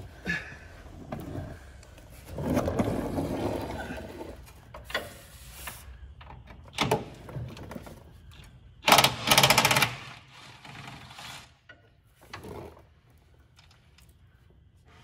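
Cordless impact driver hammering on a bolt under the car in a burst of about a second, about nine seconds in; it is the loudest sound. Earlier comes a longer rumbling noise as a mechanic's creeper rolls across the concrete floor.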